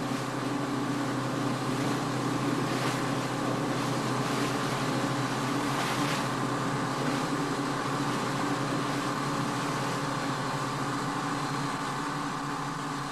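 Engine running steadily: an even, unchanging low drone that holds one pitch.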